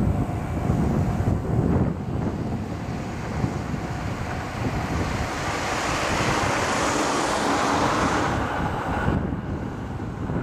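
Diesel train running past in the distance, a broad rushing noise that swells about halfway through and falls off suddenly near the end, with wind rumbling on the microphone throughout.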